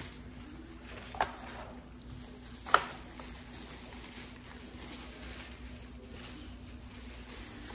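Packaging and the unit being handled while it is lifted out of its box: two sharp clicks or knocks about a second and a half apart, the second the louder, over a faint steady hum.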